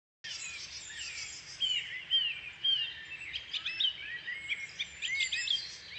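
Several songbirds singing at once, a dense chorus of overlapping chirps, whistles and warbles. It starts abruptly just after the opening moment.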